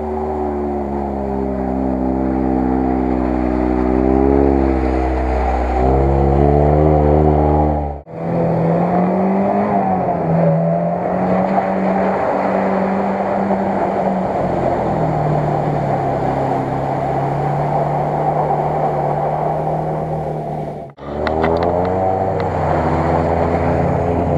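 Off-road 4x4 engine revving under load in mud and water, its pitch climbing and falling as the throttle is worked. Two sudden breaks where the sound cuts off and restarts.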